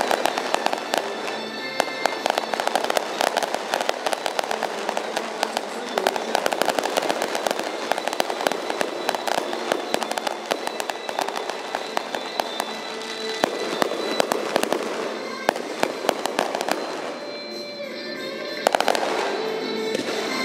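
A fireworks display going off: a dense run of rapid pops and crackles from bursting shells, thinning out briefly near the end before picking up again. Music plays underneath.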